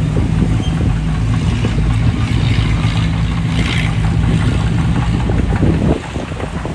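Komatsu D20P bulldozer's diesel engine running steadily, pushing earth. The level drops suddenly about six seconds in.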